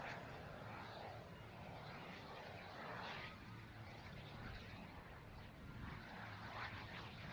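Faint rushing of a 5-metre Cirrus K RC turbine glider flying overhead, swelling and fading a few times as it passes, over a low rumble.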